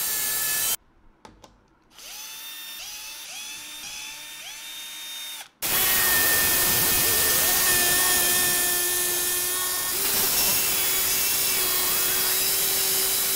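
HI-MAX corded jigsaw cutting plywood. It runs loud and steady, stops about a second in, and gives a quieter stretch of about five short rising whines. From about halfway it cuts steadily again with a constant whine.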